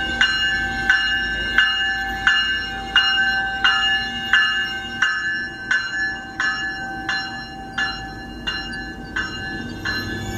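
Metrolink commuter train's bell ringing steadily, about three strikes every two seconds, growing fainter in the second half as the leading car passes. The low rumble of the bilevel coaches rolling along the platform lies underneath.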